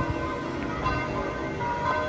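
Church bells of St. Peter's Basilica ringing, several steady tones hanging in the air with new strikes coming in.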